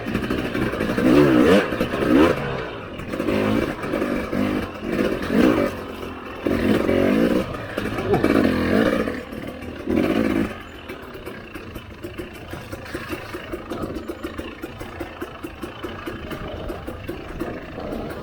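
Husqvarna TE300i two-stroke dirt bike engine revving in short throttle bursts, its pitch rising and falling, for about ten seconds, then running quieter and steadier at low throttle.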